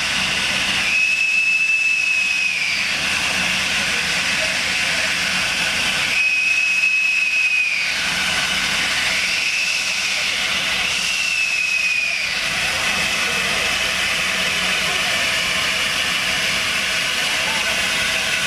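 Steam locomotive hissing loudly and steadily as steam blows from its cylinder drain cocks. Three high, steady steam-whistle blasts sound about five seconds apart, each lasting about a second and a half.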